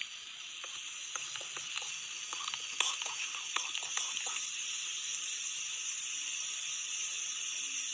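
Steady, high-pitched chorus of night insects, with scattered soft crackles and clicks over the first four seconds or so, like movement on dry leaf litter.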